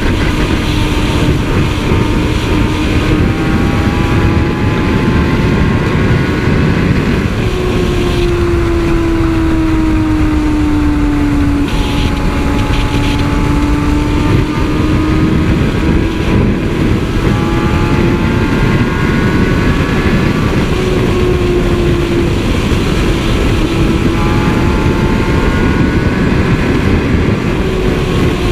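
Heavy wind rush on the microphone over a Kawasaki ZX-10R's inline-four engine running at high revs at highway speed. The engine whine holds a steady high note that drifts slowly up and down as the throttle changes.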